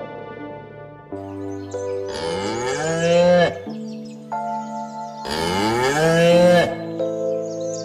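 A cow mooing twice, each moo about a second and a half long, rising in pitch and then dropping off, over background music with steady held notes.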